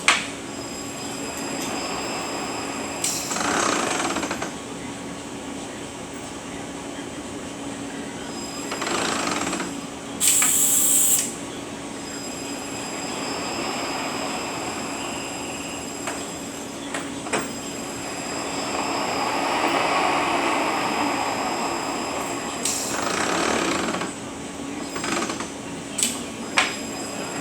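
Rebuilt Eaton Fuller RTLO-18918B 18-speed truck transmission running on a test dyno: steady mechanical running with a constant tone. A short loud hiss comes about ten seconds in, and a few sharp clicks near the end.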